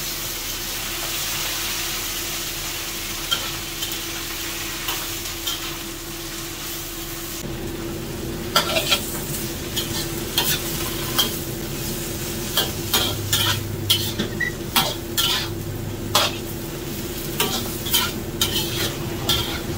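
Water spinach sizzling as it is stir-fried in a wok, with a metal spatula scraping and knocking against the wok again and again through the second half.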